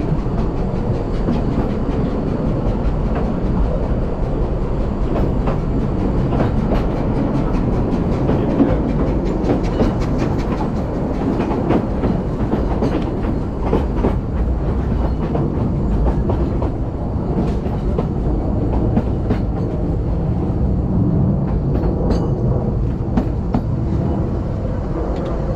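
Narrow-gauge railway carriage running along the track, its wheels rumbling steadily with clickety-clack over the rail joints and points.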